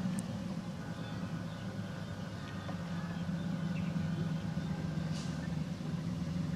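A steady low engine drone, holding an even pitch throughout.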